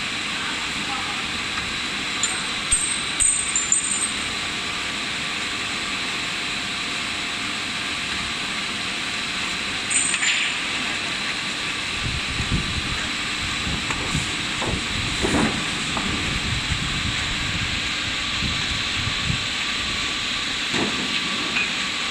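PET sheet extrusion line running: a steady machine hiss with a few faint steady tones underneath. Brief louder clicks come about two to four seconds in and again about ten seconds in, with low rumbling through the second half.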